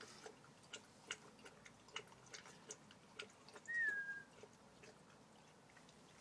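Staffordshire bull terrier lapping water from a stainless steel bowl: irregular soft clicking laps, about two or three a second, which die away about two-thirds of the way through. A little past halfway, a single short high whistle-like note, falling slightly in pitch, is the loudest sound.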